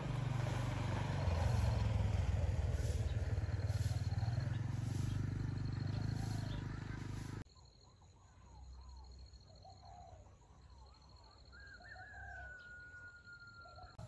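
A loud low rumble for about the first half, cutting off suddenly. After it, quieter outdoor background with scattered bird chirps and a rooster crowing once near the end.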